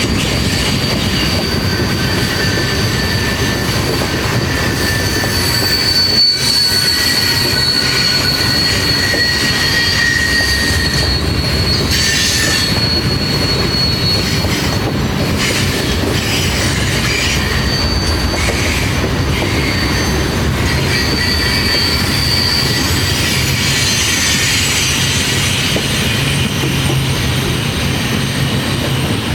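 Freight train cars rolling past, with a steady rumble and steel wheels squealing high on the rails, the squeal wavering and coming and going.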